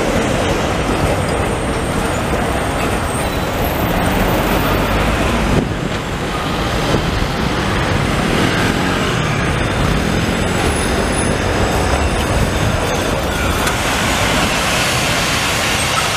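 Steady city-street traffic noise: modern low-floor trams running over their rails through a junction, with cars and motor scooters passing.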